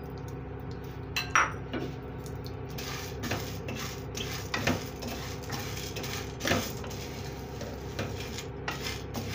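A wooden spatula stirring pieces of gond (edible gum) around a metal kadai in a little ghee, knocking and scraping against the pan at irregular moments, the sharpest about a second and a half in and again near six and a half seconds, over a steady low hum. The gond is being fried in ghee until it puffs up.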